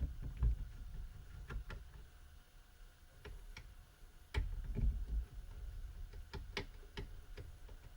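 Small clicks and taps of a screwdriver and parts being handled inside an opened laptop, scattered irregularly, with low bumps just after the start and again around four to five seconds in.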